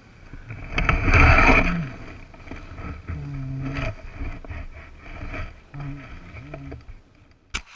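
A dirt-bike rider lying on the ground after a crash, letting out short, low groans, about three of them. About a second in there is loud rustling and scraping against the helmet camera, and a sharp click comes near the end.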